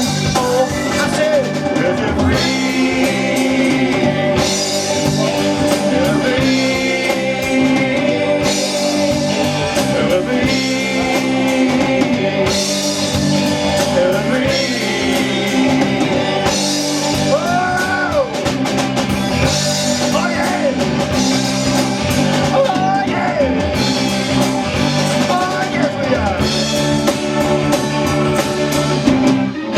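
Live rock band playing, with guitars, bass and drum kit keeping a steady beat and a voice singing over it in places.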